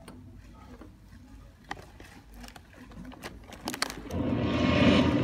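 Quiet hall sounds with scattered faint clicks, then about four seconds in a loud, low, rushing sound effect cuts in abruptly and holds steady. It is the soundtrack of a film's countdown leader played through the hall's speakers.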